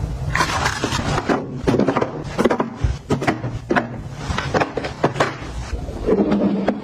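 Toiletries, including plastic mouthwash pods, bottles and boxes, are handled and set into plastic organizer bins. The result is a run of irregular sharp knocks and taps with some rustling.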